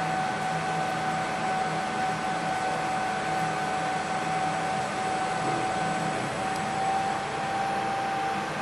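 Steady mechanical hum and whir inside a moving elevator car, with a constant high-pitched whine held throughout.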